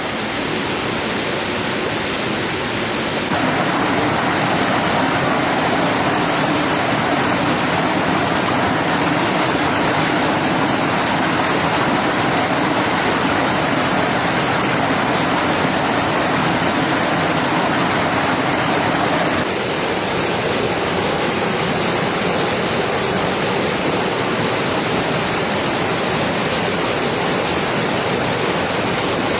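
Heavy rain pouring steadily, a dense unbroken hiss. It gets louder about three seconds in and drops back a little about two-thirds of the way through.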